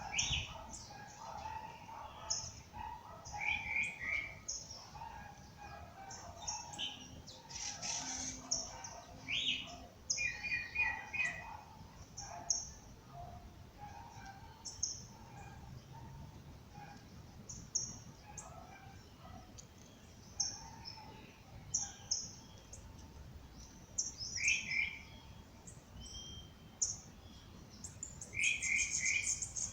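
Several songbirds singing and chirping together in a dawn chorus: many short, high chirps and trills repeated throughout, some quick rapid trills about eight and twenty-nine seconds in, over a fainter, lower warbling.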